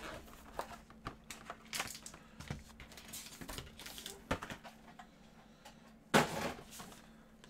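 Cardboard trading-card boxes and foil card packs being handled: scattered light knocks, clicks and rustles, with a louder crinkling rustle about six seconds in.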